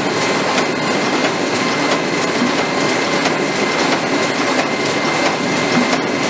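Butter mini-portion packaging machinery running: a steady, loud mechanical din with a constant high whine and faint repeated clicks.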